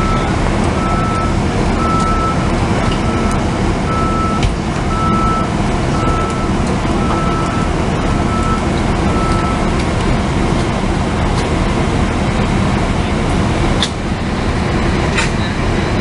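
Backup beeper of a large emergency vehicle reversing, a single high tone about once a second, stopping about ten seconds in. A steady low rumble of a big idling engine underneath.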